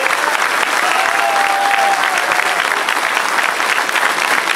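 A large crowd applauding, dense and steady clapping, with one held tone rising above it for a second or so about a second in.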